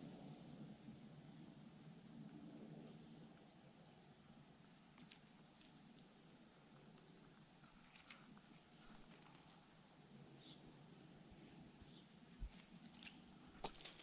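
Insects calling in one steady, high-pitched drone, with a few faint clicks near the end.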